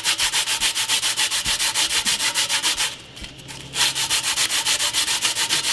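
80-grit sandpaper rubbed by hand along a carbon-fibre paddle shaft in quick back-and-forth strokes, about eight or nine a second, blending out the ridges on a fresh composite patch. The strokes stop briefly about three seconds in, then carry on.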